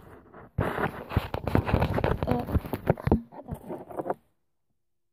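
Dense rustling and clicking from hands rummaging through a wallet. It cuts off suddenly about four seconds in.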